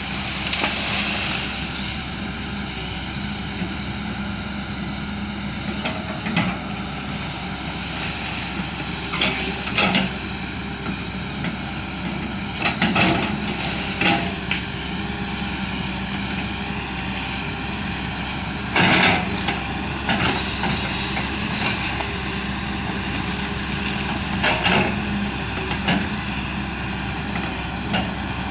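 Diesel engine of a digging machine, such as a backhoe loader or excavator, running steadily under load with a constant high whine. Short clanks and knocks come at irregular intervals, loudest about 19 seconds in.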